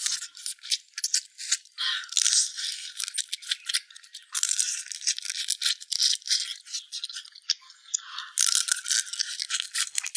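Close-miked eating sounds of gnawing and chewing soft, fall-off-the-bone red-braised pig trotters: a dense, irregular run of small clicks and smacks, thin and high with no low end.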